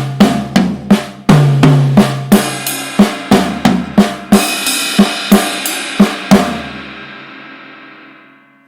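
Drum kit playing Swiss Army triplets, a right-hand flam followed by a right and a left stroke, with the right hand moved around the kit among drums and cymbals. The strokes stop a little past six seconds in and the cymbal rings on and fades away.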